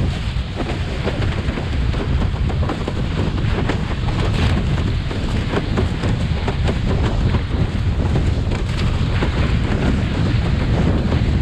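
Wind buffeting an action camera's microphone as a slalom windsurf board planes fast over choppy water. It makes a steady, heavy low rumble, with many small slaps and splashes of water throughout.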